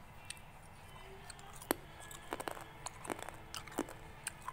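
Crisp snack chips being handled and crunched: about six sharp crackles scattered through the second half, over a low steady hum.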